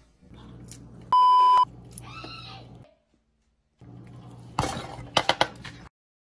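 An edited-in bleep tone: one steady, loud beep about half a second long. Later comes a quick run of sharp knife chops on a wooden cutting board.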